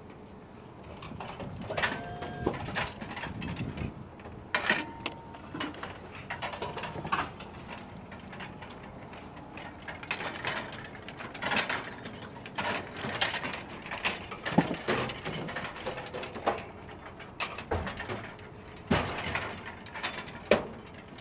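Grip cart loaded with metal C-stands rolled over a metal liftgate and into a van's cargo floor: casters rolling with repeated rattling and clanking of the stands and cart frame.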